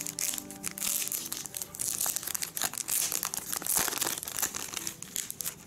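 Thin clear plastic wrapping crinkling and rustling as it is pulled off a tablet by hand, a dense run of crackles that dies down near the end.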